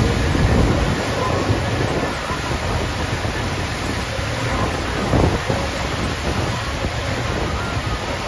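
FlowRider wave machine's pumped sheet of water rushing steadily up the padded ride surface, with a brief louder surge of spray about five seconds in.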